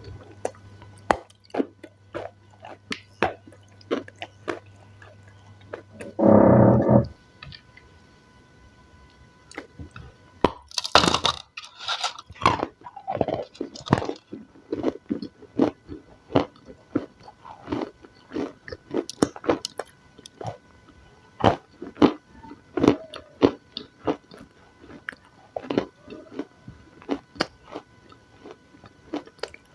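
Close-miked chewing of crunchy salad: many quick, crisp crunches and bites, with a loud brief burst about six seconds in.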